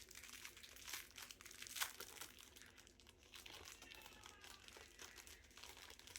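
Faint crinkling and crackling of packaging being handled, as small packets of jewelry-making supplies are opened and sorted.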